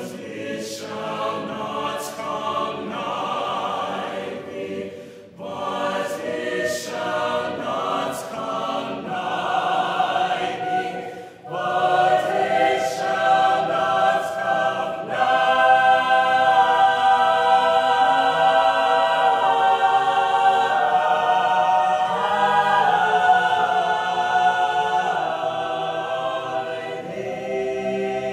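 Large mixed choir singing a sacred anthem in harmony, growing louder about eleven seconds in and fuller about fifteen seconds in.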